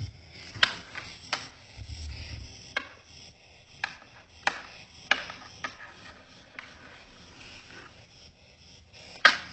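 About nine sharp taps and clicks at irregular intervals, the loudest near the end, as a husky paws at a curled-up hedgehog: its paw and claws striking the wooden floor and the hedgehog's spines.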